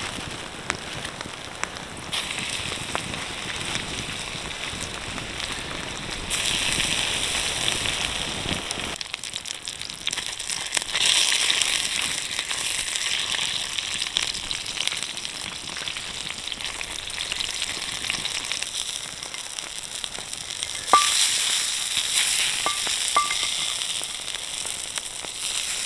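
Chicken sausages sizzling in oil in a frying pan on a wood campfire, the sizzle growing louder in steps a few times as they are moved about with a wooden spatula. A few sharp clicks near the end.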